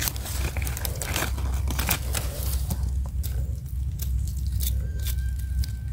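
A knife blade scraping soil off the stem base of freshly picked termite mushrooms: a run of small scratchy clicks and crackles, along with rustling of dry leaf litter as the mushroom is pulled up.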